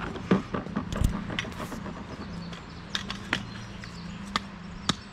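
A caught trout thrashing in a landing net on gravel: irregular knocks and rustles, a loud cluster in the first second or so, then scattered sharp clicks as it tires. A steady low hum runs underneath.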